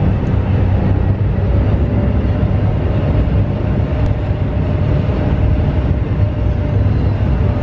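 Steady low rumble of a roll-on/roll-off ferry's engines heard on board while under way, with a faint steady whine above it from about a second in.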